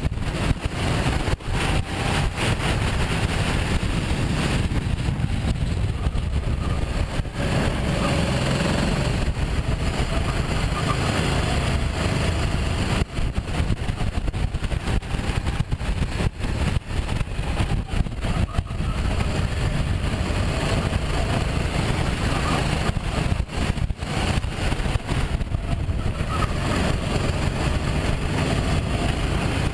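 Sodi RT8 kart's engine running under load at racing speed, heard from a camera mounted on the kart. Its wavering note sits under a loud, steady low rumble, with frequent brief knocks from bumps and buffeting.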